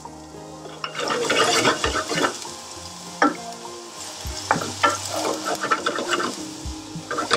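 Diced onion sizzling in hot olive oil in a frying pan, starting about a second in, then stirred with a wooden spoon that scrapes and clicks against the pan as the onions sweat.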